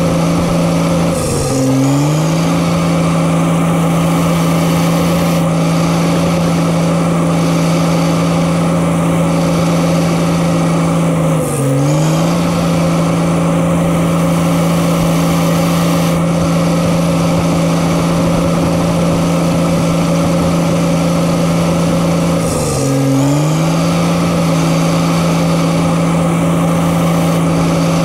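Diesel engine of a Case tracked earthmoving machine running at a steady high speed. Three times its pitch drops briefly and recovers, each time with a short high squeal.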